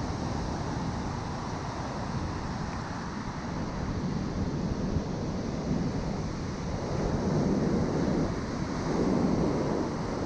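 Ocean surf breaking, with wind rushing over the microphone; the surf swells louder a few times in the second half.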